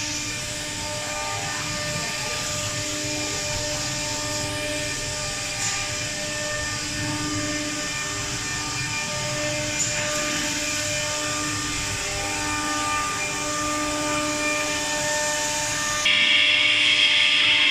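Machinery running on a CNC router factory floor: a steady whine made of several held tones over a hissing background, with some tones coming and going. A louder hiss lasts about two seconds near the end.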